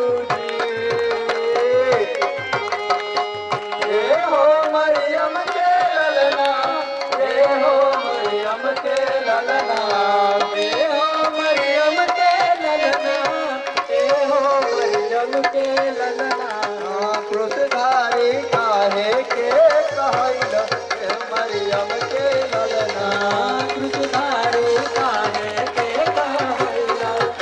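Devotional worship song: a voice sings a wavering melody over a steady hand-drum beat, with hand-clapping along.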